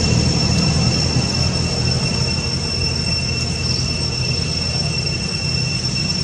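Cicadas droning: one steady, unchanging high-pitched whine, over a low rumble.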